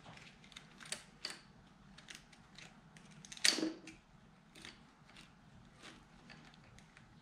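Small clicks and taps of hands working the KTM 85's carburetor top cap, throttle cable and slide spring, scattered through, with one louder knock about three and a half seconds in.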